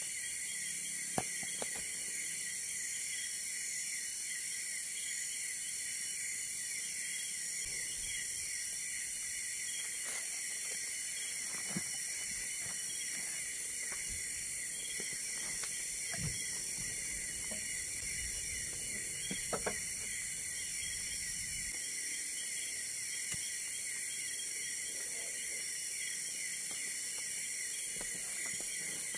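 A steady chorus of night insects trilling without a break, with a few faint knocks about a second in and again near the twenty-second mark.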